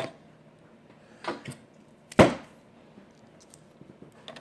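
Handling knocks and clicks from small electronic parts being picked up and set down: a couple of light clicks, then one sharp knock about two seconds in, then a few faint ticks near the end.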